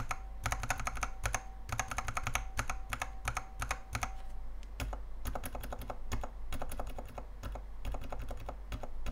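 Mechanical keyboard switches on a KBDfans 72-switch tester, with an acrylic base and dye-sub XDA keycaps, being pressed in rapid runs of clacks. A faint steady ring runs under the first four seconds, and after that the presses come sparser and more evenly spaced.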